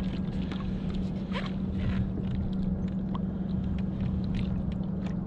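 A steady low hum under a rumble of wind and water noise, with scattered light clicks and knocks from the kayak.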